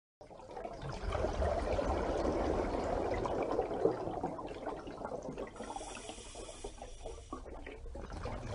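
Water bubbling and trickling, with many short bubbly pops, louder in the first half.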